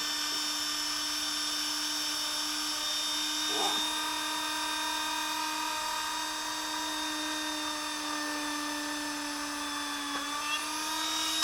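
Dremel rotary tool running at a low speed setting as it drills a hole through a toy duck, a steady high whine that dips slightly in pitch near the end and then cuts off.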